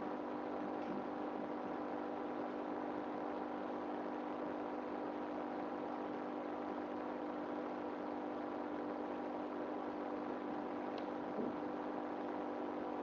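A steady hum over an even hiss, unchanging throughout, with one faint tick near the end.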